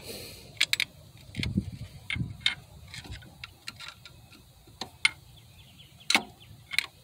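Hand tools clicking and tapping on the metal of a car alternator and its mounting bracket: scattered sharp clicks, a quick cluster of three just under a second in, then single clicks every second or two.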